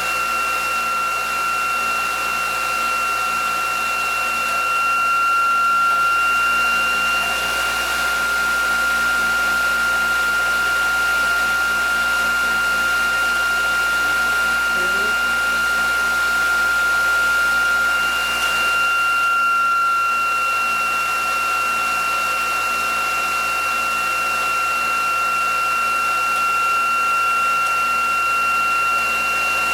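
Bench-top generator prototype and its electric drive motor running: a steady high electrical whine over a fan-like hiss, the whine shifting slightly in pitch about two-thirds of the way through.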